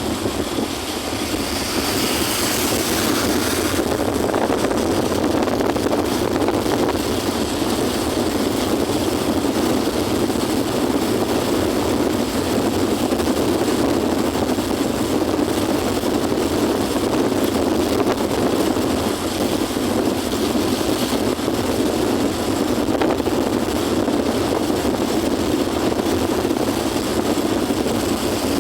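Steady running noise of a moving vehicle: a continuous low rumble of engine and road, with a hiss above it.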